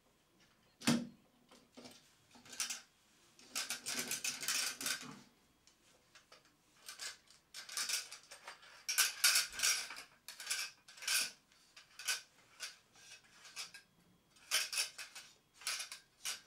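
Brass parts of a Protector Lamp & Lighting Co. miner's safety lamp clicking, clinking and scraping as the lamp body is screwed back onto its base. The sound comes as short bursts of metallic rasping and clicks while the threads are turned.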